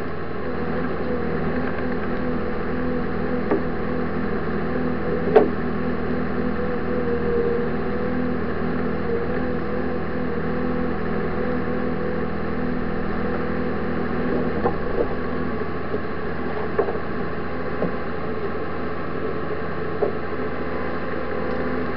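Tracked snow vehicle's engine running steadily under load, heard from inside the cab as it ploughs through deep snow. A few short sharp knocks, the loudest about five seconds in.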